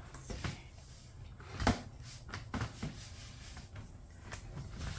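A few light knocks and clicks, the loudest about one and a half seconds in, over a low rumble.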